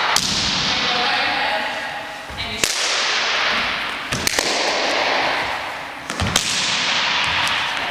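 Sharp slaps and landings from jumping martial arts kicks on a hardwood gym floor: four cracks, most followed by a loud hiss that fades away over about two seconds.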